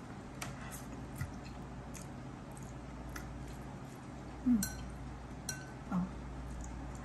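A person chewing a mouthful of noodles, with wet mouth sounds and a few light clicks. Two short low hums come in the second half.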